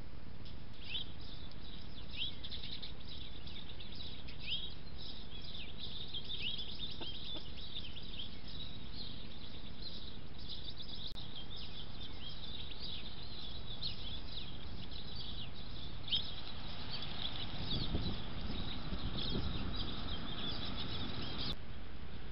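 Birds chirping, many short high chirps over steady background hiss, picked up through a trail camera's microphone. In the last few seconds a louder, lower rustling sound joins in.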